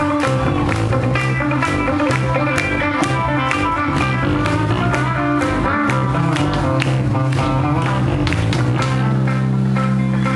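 Loud rock music with electric guitar, bass notes and a steady beat, settling into a held chord about nine seconds in.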